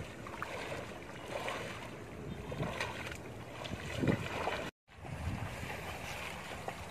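A person wading through knee-deep water, legs splashing and sloshing with each step, over steady wind on the microphone. The sound drops out for a moment just past halfway.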